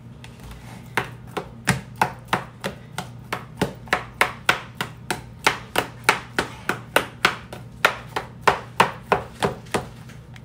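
A metal spoon chopping seasoned avocado halves in a plastic container. Each stroke lands as a sharp tap, about three a second, starting about a second in.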